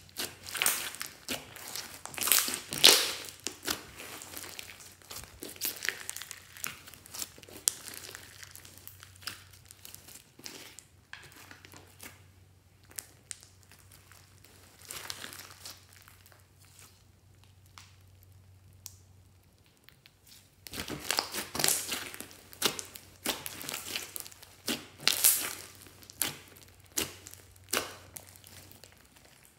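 Hands squeezing, pressing and pulling a large mass of slime studded with foam beads, giving irregular crackly, squishy bursts. They are louder at the start and again from about two-thirds of the way in, with a quieter stretch in the middle.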